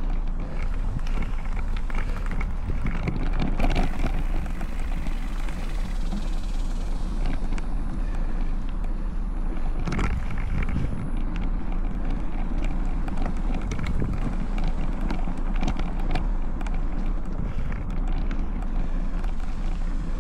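Specialized Stumpjumper Evo mountain bike riding along a dirt trail, picked up by a handlebar-mounted camera: tyre noise and wind on the microphone, with frequent clicks and rattles from the bike and a sharp knock about ten seconds in.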